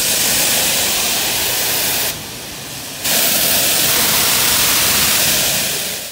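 Self-serve car-wash pressure-washer wand spraying high-pressure water onto a soaped car's bodywork: a loud, steady hiss of spray that eases off for about a second around two seconds in, then comes back at full strength.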